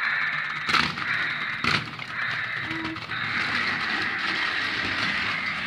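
Toy car running with a steady whirring noise, with two knocks about one and two seconds in.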